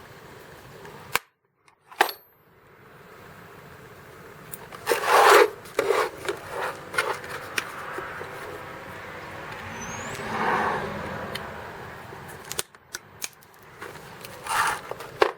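Plastic security tabs on a wrench set's plastic case being cut, with scattered snips, sharp clicks and scraping and rustling of the plastic as it is handled.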